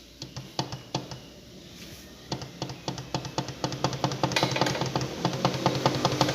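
Honda Bros 150 single-cylinder engine running with its magneto cover off, with a rapid metallic ticking and clatter that thickens and grows louder about two seconds in. The clatter comes from play in the crankshaft, which the mechanic traces to broken bearing retainer supports.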